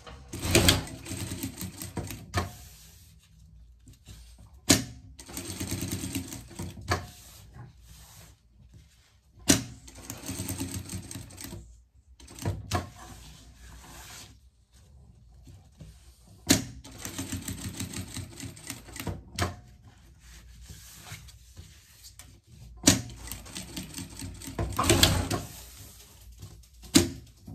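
Sewing machine topstitching fabric in short runs of rapid stitching, starting and stopping about five times. Sharp clicks mark where several of the runs start or stop.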